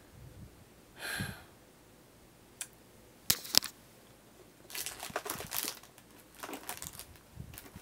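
A breathy exhale about a second in, then a few sharp knocks, then the crinkling of a small clear plastic bag being handled in several bursts over the second half.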